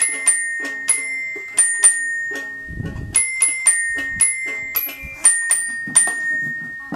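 Toy piano with chime-like metal tones, its keys pressed one at a time to pick out a slow, simple melody, about two or three notes a second, each note ringing on. A dull low bump sounds about three seconds in.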